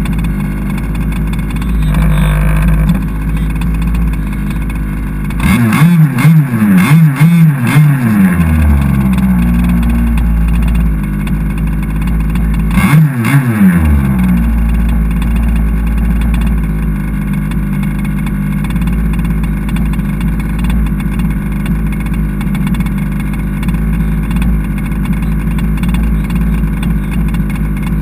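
Two-stroke petrol engine of an HPI Baja 5SC 1/5-scale RC truck, heard close from a camera mounted on the truck, idling steadily. It revs in a burst of throttle about five seconds in that falls back to idle over a few seconds, and gives a shorter rev blip around thirteen seconds.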